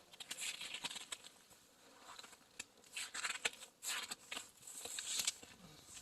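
Irregular crunching in snow, a few short crunches a second, like footsteps on fresh snow.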